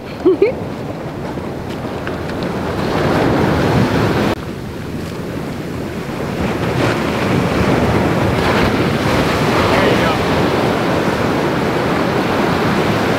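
Surf washing up a sandy beach and swirling around the shallows, with wind buffeting the microphone. The rush drops suddenly about four seconds in, then builds again.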